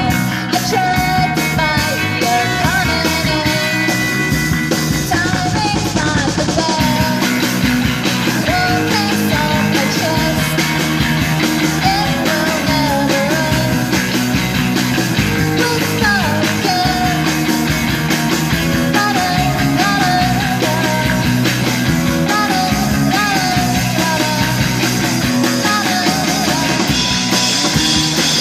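A rock band playing live: guitar, bass and drums going steadily, with a sung melody over them.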